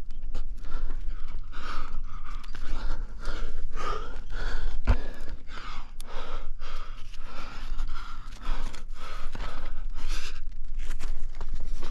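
A rock climber breathing hard under exertion, quick gasping breaths in and out about two a second, with a single low thump about five seconds in.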